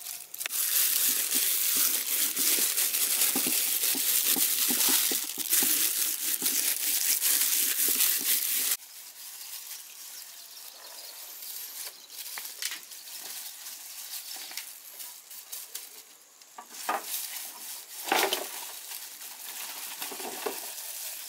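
Disposable plastic gloves crinkling as hands sprinkle spices over a whole fish on a woven bamboo tray and rub them in: a loud, dense, crackly rustle. It drops off abruptly about nine seconds in, leaving quieter rustling and a few soft knocks.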